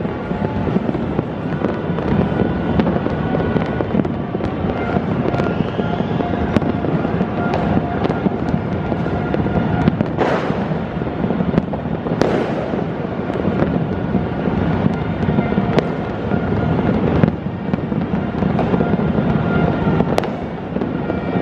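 Dense fireworks and firecrackers going off together: a continuous rattle of crackling explosions, with sharper loud bangs about ten, twelve and twenty seconds in and a rising whistle about five seconds in.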